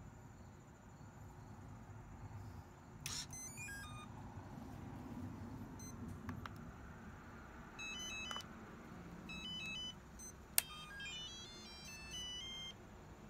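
FlySky FS-i6S radio-control transmitter beeping as it powers on: several short runs of electronic beeps in stepped pitches, with a sharp click about ten and a half seconds in.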